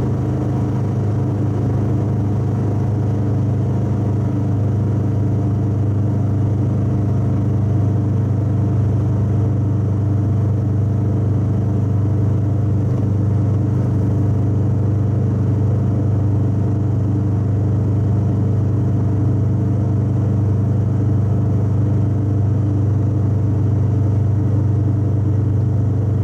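Twin-carburettor Subaru EA81 flat-four engine pulling at a steady speed, heard from inside the cabin as a loud low drone at constant pitch, mixed with road noise.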